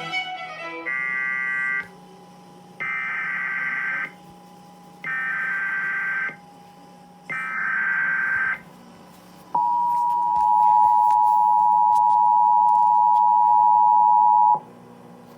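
Emergency Alert System SAME header: four harsh one-second bursts of digital data tones, each followed by a pause of about a second. Then comes the EAS two-tone attention signal, a steady dual tone held for about five seconds that cuts off sharply, announcing a tornado watch alert.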